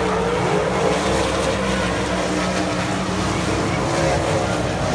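Several sprint car V8 engines running hard together in a steady, loud drone, their notes wavering as the cars pass.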